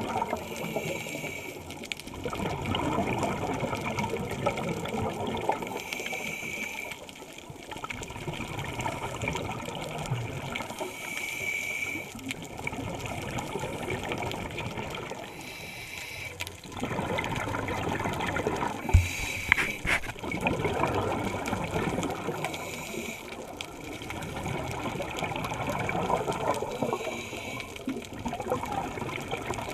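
Scuba diver breathing through a regulator, heard through a GoPro's underwater housing: a short hiss on each inhale and a long bubbling rush on each exhale, repeating about every five seconds. A single sharp knock about two-thirds of the way through.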